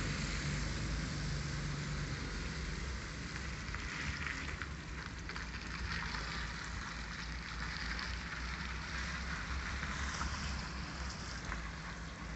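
A heavy vehicle's engine running steadily at a distance, a low rumble with a clearer engine note in the first two seconds, over a steady hiss.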